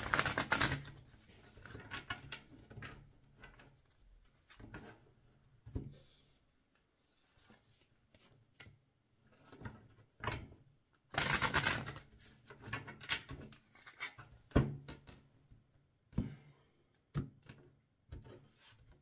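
A deck of tarot cards being shuffled by hand: two longer runs of fast card-on-card riffling, right at the start and about eleven seconds in, with scattered single taps and flicks of cards between.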